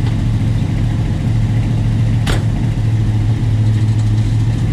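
1963 Chevrolet C20 pickup's engine idling steadily, with a single sharp click a little over two seconds in.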